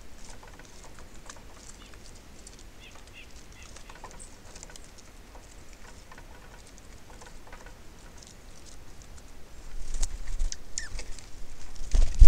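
Small birds at a seed feeder: light, irregular tapping and pattering of pecking and scratching at seed, with a few faint high chirps. Louder knocks and a low rumble come over the last couple of seconds.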